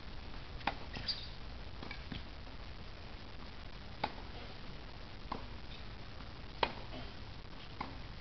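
Tennis rally: sharp pops of the ball struck by rackets and bouncing on the hard court, several in a row with the later ones about a second and a quarter apart.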